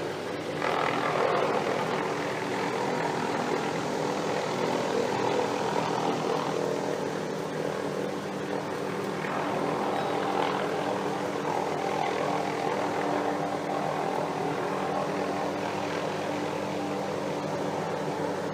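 Tree-trimming helicopter running steadily, its engine and rotor giving a steady hum of several tones, with a rushing noise that swells about a second in and again around nine seconds in.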